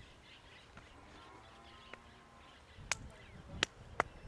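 Quiet outdoor ambience with faint, distant bird chirping. About three seconds in come a few short, sharp clicks or taps, the loudest sounds here.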